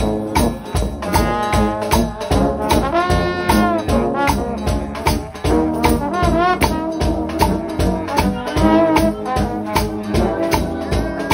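Gospel shout band of trombones with lower brass and tambourines playing a lively tune, the trombone lines sliding and bending between notes over a steady tambourine beat.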